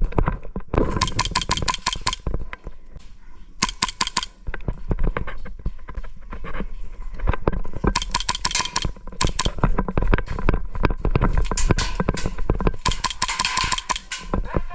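Airsoft guns firing several bursts of rapid fire: quick strings of sharp cracks a second or so long, with scattered single shots and clicks in between.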